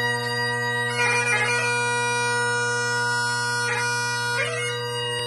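Great Highland bagpipe: the drones sounding steadily under the chanter, which holds one high note broken by quick grace-note flourishes about a second in and twice near the end, as a set of 2/4 marches gets under way.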